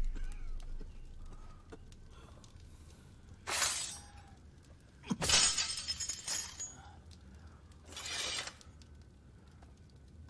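Three crashing, shattering bursts, the middle one the longest and loudest, as a barred wooden prison-cell gate is forced open.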